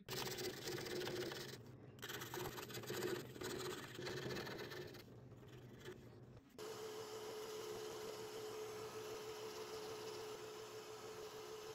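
A drill press boring a small hole in a wooden board, in short stretches with brief drops between them. About two-thirds of the way in, a scroll saw starts running at a steady, even pitch as it cuts through the board.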